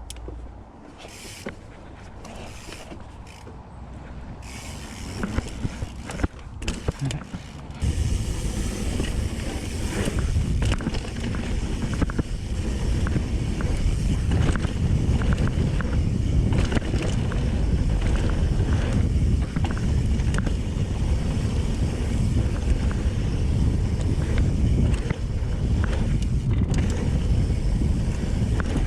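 Mountain bike riding a dirt trail: tyres rumbling over the ground, with clicking and rattling from the chain and frame. Quieter with light clicks at first, then much louder and denser from about eight seconds in as the bike picks up speed.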